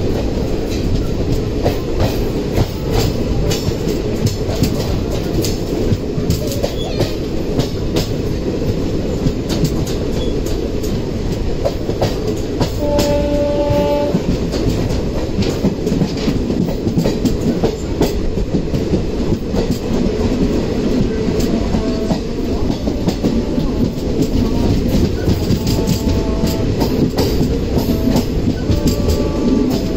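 Train running noise heard from a coach doorway: a steady rumble with irregular wheel clicks over rail joints, as two trains pass each other on adjacent tracks. A short railway horn blast sounds about 13 seconds in, with a few fainter brief tones later on.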